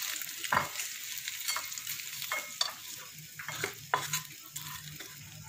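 Fried chicken sizzling in hot oil in a frying pan while a wooden spatula scrapes and knocks the pieces out into a bowl: a steady hiss under a string of short scrapes and knocks.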